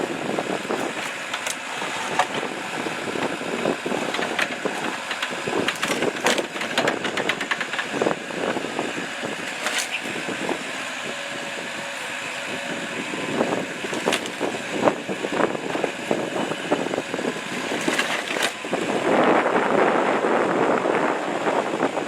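Excavator at work: its engine runs under a stream of irregular cracks, knocks and crunches from the material it is handling, growing louder and denser near the end.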